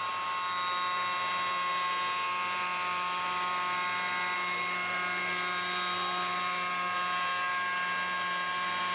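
5-axis CNC wood router spindle running at speed and machining a curved wooden chair back. A steady high whine with several tones sits over the noise of the cut.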